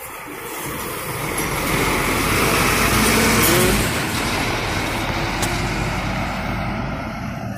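Diesel intercity coach driving past at close range and pulling away: engine running with tyre and road noise, loudest about three seconds in, then fading as it leaves.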